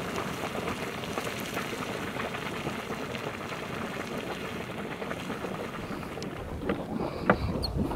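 Boiling water splashing and spattering from a small geyser vent, a steady seething hiss. About six seconds in it gives way to a low rumble of wind on the microphone and a few sharp knocks.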